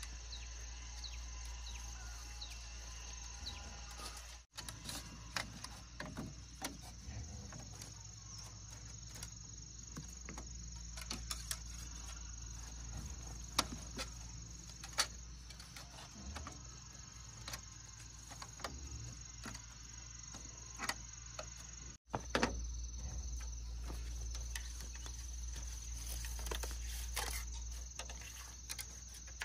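Scattered sharp clicks and light knocks of binding wire being cut and twisted with pliers against bamboo slats, over a steady high chirring of insects.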